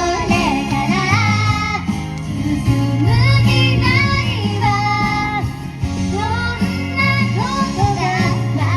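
A young girl singing a pop song over instrumental accompaniment with a steady bass line.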